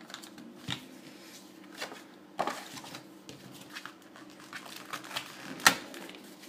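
Paper flyers and packaging rustling and clicking as they are handled, in scattered bursts with one sharp click near the end. A washing machine runs in the background with a steady low hum.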